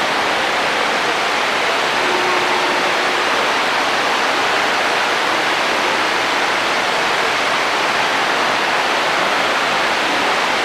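Steady, even hiss of background noise, unchanging throughout, with no speech or distinct events.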